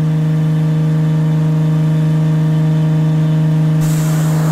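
A car engine held at steady high revs, one unchanging pitch. Near the end a loud hiss joins it.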